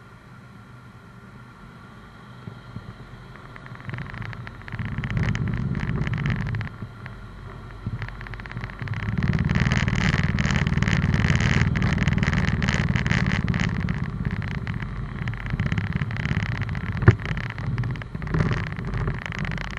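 Car driving up the steel ramp and onto the ferry's vehicle deck: engine and tyre noise with a low rumble. It is quiet for the first few seconds, swells about five seconds in, and stays loud through most of the rest, with a single sharp knock near the end.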